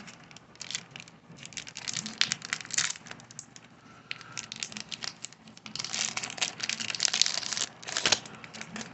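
Foil wrapper of a 2021 Bowman baseball card pack crinkling as it is handled and torn open, in two spells of crackling, the second louder, ending about eight seconds in.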